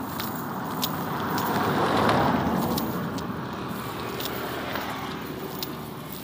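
A cast net being worked by hand on gravel, with light scattered clicks from its chain sinkers and the fish being picked out. Underneath is a steady rushing noise that swells about two seconds in and then eases off.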